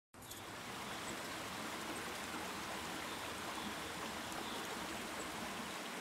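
Rainforest creek running over rocks: a steady rush of water that fades in at the very start.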